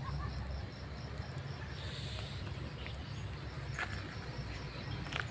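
Insect chirping in a steady rhythm, short even pulses at one high pitch about three times a second, over a low rumble, with a few sharp clicks near the end.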